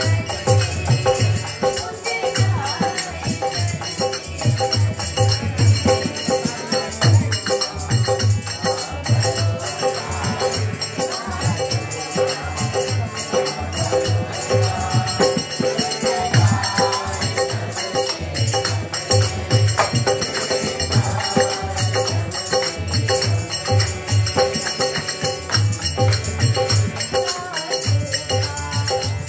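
Devotional kirtan music: harmoniums sustaining tones over a fast, steady rhythm of barrel hand drums, with jingling small brass hand percussion.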